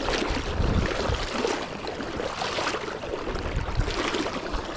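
Steady rush of shallow river current flowing around the wading angler, with wind buffeting the microphone as a low, uneven rumble.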